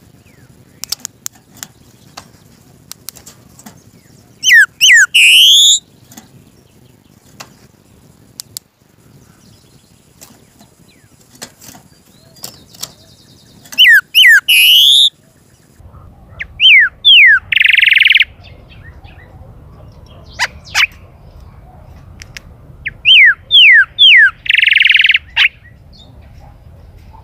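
Golden-billed saltator (chalchalero) singing: about four loud phrases of quick slurred whistles separated by pauses, the later phrases ending in a buzzy note. Faint scattered ticks can be heard between the phrases.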